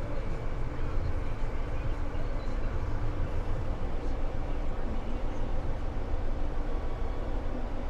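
Diesel engine of heavy farm machinery running steadily, a constant low drone with no change in speed.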